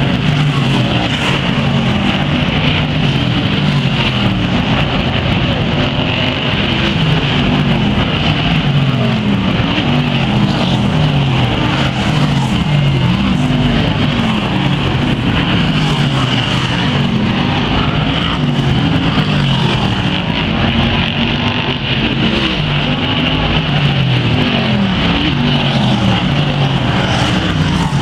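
A pack of BriSCA Formula One stock cars racing, their V8 engines loud and continuous and rising and falling in pitch over and over as the cars accelerate out of the bends and back off into them.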